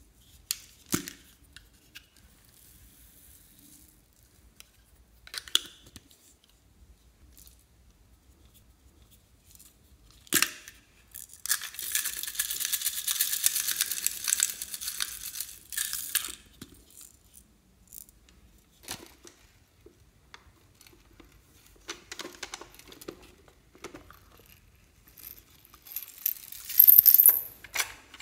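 Plastic toy containers handled with a few sharp clicks, then for about five seconds in the middle a dense steady rattle of small beads or sprinkles poured from a yellow plastic bottle onto slime. Near the end, louder clattering of plastic.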